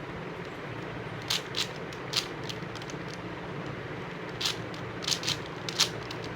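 Plastic 5x5 Rubik's cube being turned by hand: a scatter of short clicks and scrapes as layers snap round, in two clusters. A steady low hum runs underneath.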